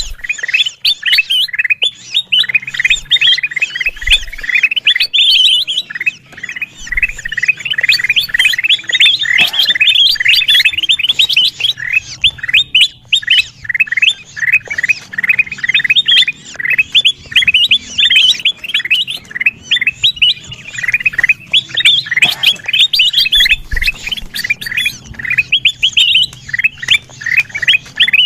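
Kutilang emas bulbuls chattering noisily: a dense, continuous stream of quick, overlapping chirps and squawks, the kind of call used as a bird-trapping lure.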